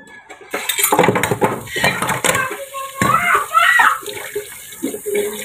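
Used dishes and cutlery clattering against each other as they are handled at a kitchen sink, with tap water starting to run about half a second in.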